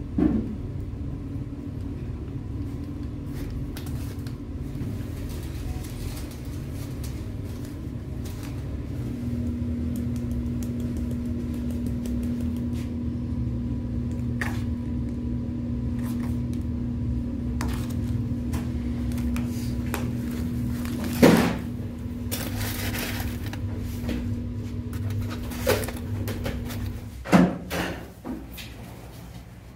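Steady electric appliance hum over a low rumble, starting about nine seconds in and cutting off near the end, with a few sharp knocks.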